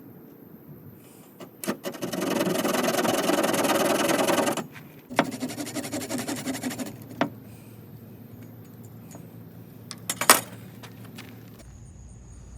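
Wood being cut and scraped with quick repeated strokes in two bouts, the first and louder about two seconds in, as a notch is cut for the hand drill; a sharp click follows near the end.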